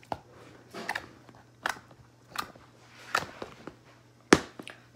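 Clear slime squeezed and worked in the hands, giving the sharp clicking pops of air pockets bursting, about six irregular clicks, the loudest a little after four seconds in.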